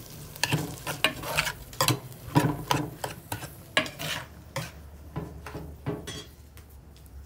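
A spoon stirring and scraping chopped tomatoes, chiles and onion frying in a little oil in a clay cazuela, about two scraping strokes a second over a sizzle. The stirring stops about six seconds in.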